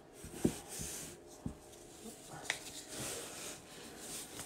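Quiet handling of a stack of trading cards in the hands: soft taps and the slide of card edges as the cards are sorted, with a person's breathing close to the microphone.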